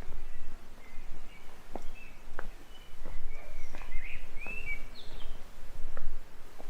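Small birds chirping in short calls and brief rising and falling notes, over a steady low rumble, with scattered soft taps.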